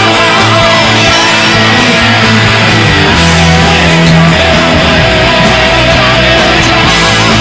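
Rock band playing a guitar-led instrumental passage, with electric guitar over a full backing.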